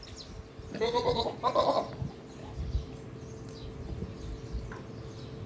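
A goat bleating twice in quick succession about a second in, two short calls.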